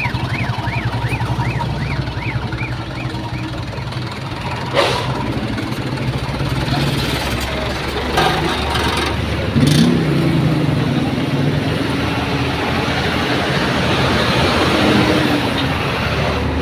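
Truck and car engines running in slow roadside traffic, a steady low hum that grows louder from about six seconds in as vehicles move past. A repeating warbling beep sounds over it in the first few seconds and dies away.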